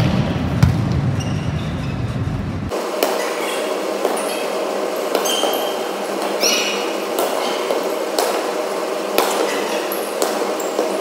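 Volleyball rally in a gym hall: sharp knocks of the ball being hit, with brief high shoe squeaks on the court floor. About three seconds in, the sound changes abruptly, losing its low rumble, as the rally plays back sped up, with the knocks coming faster.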